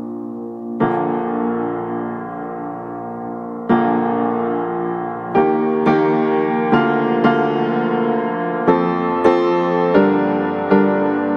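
Background piano music: slow ringing chords, then quicker notes about every half second from around five seconds in.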